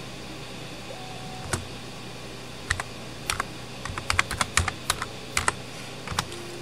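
Typing on a computer keyboard: irregular key clicks, scattered at first and then coming fast in a quick run a little past the middle. They stop shortly before the end.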